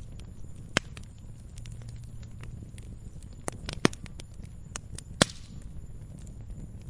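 Campfire crackling: scattered sharp pops and snaps of burning wood over a steady low rumble of the flames. The loudest pop comes about five seconds in.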